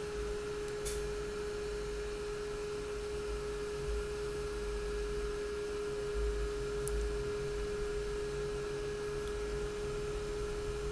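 MT-3103 bulb-socket fan heater running on its highest, 300-watt setting: its fan gives a steady, single-pitched whine over a low hum.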